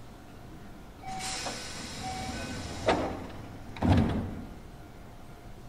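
Keio 7000-series train's sliding doors closing: a hiss with a few short beeps starts about a second in, then comes a sharp click, and a second later a heavy thud as the doors shut.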